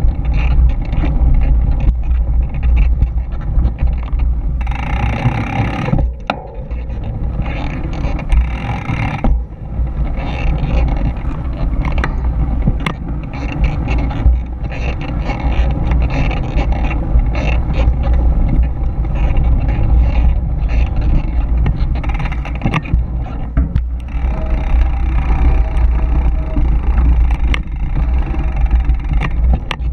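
Mountain bike running fast down a dirt trail: wind buffeting the camera microphone over the rumble of knobby tyres on dirt, with frequent small knocks and rattles from the bike over bumps.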